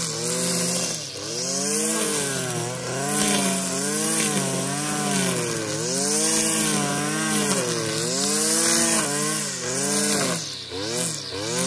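Stihl FS 460 C brushcutter's two-stroke engine running near full throttle while its 3.3 mm nylon trimmer line cuts fresh grass. The engine note dips and climbs back about once a second as the line takes the load of the grass with each swing.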